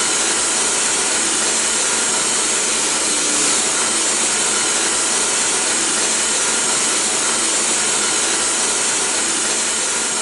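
Steady hiss of a high-pressure water stream from a fire hose nozzle, over the steady running of the fire skid's pump engine and the Yanmar YT359C tractor's diesel.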